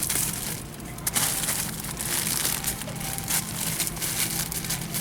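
Plastic-wrapped toilet paper packs rustling and crinkling in irregular bursts as they are handled and stacked.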